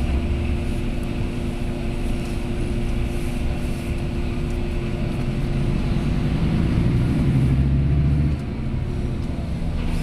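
Volvo B9R coach's rear-mounted six-cylinder diesel engine running as the bus drives, a steady drone. The drone grows louder between about six and eight seconds in, then drops off suddenly, as when the driver eases off the throttle.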